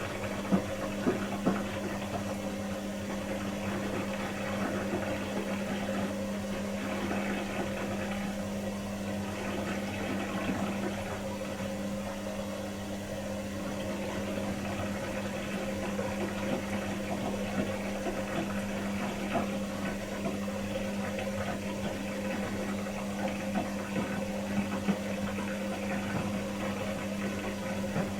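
Pro Action PRSLG96W slimline dishwasher running a wash, its pump humming steadily under the sound of water spraying inside, with occasional light knocks.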